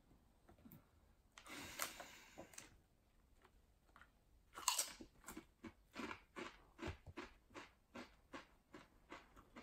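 A person biting into a Doritos tortilla chip with a sharp crunch about halfway through, then chewing it with steady crunches, roughly two to three a second.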